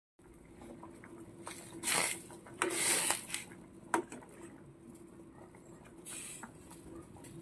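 Fish roe simmering in a pot of boiling water while a metal utensil turns it: soft bubbling with two brief wet sloshes about two and three seconds in, and a single sharp tap of the utensil against the pot about four seconds in.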